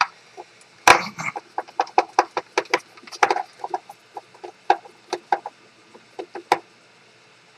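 An irregular run of small clicks and taps as parts of a self-balancing scooter are handled and taken off during disassembly. The clicks stop about six and a half seconds in.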